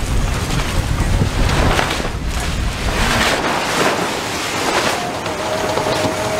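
Wind buffeting the microphone over water rushing past a sailing catamaran's hulls, with swells of spray and wash every second or so. The low wind rumble eases a little over halfway through.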